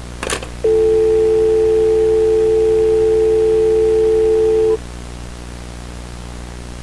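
A sharp click, then a telephone dial tone: one steady, two-note hum that holds for about four seconds and then cuts off suddenly, as the line is hung up and picked up again to call for help.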